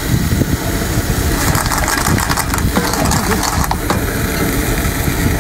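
Wind rumbling on the microphone. From about a second and a half in until about four seconds in there is a stretch of crackling and rustling as a seasoning bottle is handled and poured over a pot of raw seafood.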